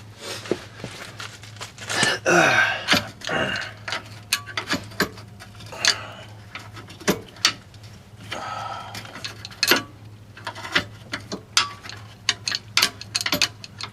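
Irregular metal clicks, knocks and short scrapes of hand tools and suspension parts as the sway bar end link hardware is worked loose, over a steady low hum.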